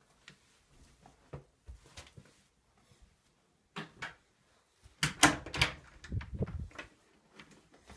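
A door being handled indoors: a few light clicks, then a clatter of knocks and rattles lasting about two seconds, starting about five seconds in.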